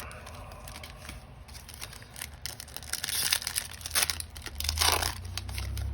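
A Yu-Gi-Oh! booster pack wrapper being torn open and crinkled by hand, a run of crackling rips that is loudest a few seconds in.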